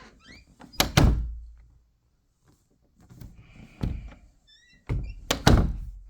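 A door being pushed shut and banging against its frame: two loud double bangs, about a second in and near the end, with a softer knock between them.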